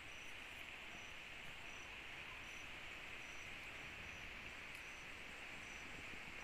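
Night insect chorus: a steady high buzzing drone, with one insect's short high chirp repeating about every three-quarters of a second.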